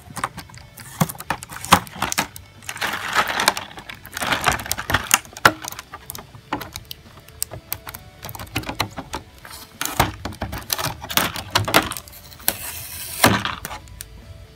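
Clear plastic blister tray crinkling and clicking as it is handled and flexed, in irregular bursts of crackle with sharp clicks between them.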